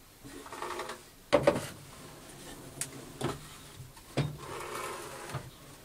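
Objects being handled on a workbench: several knocks, the loudest about a second and a half in, with rubbing and scraping between them, as lubricant containers are set down and picked up.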